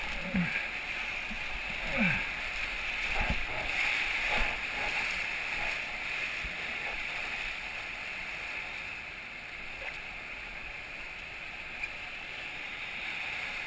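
Whitewater rapids rushing steadily around an inflatable raft, with several splashing paddle strokes and thumps in the first few seconds.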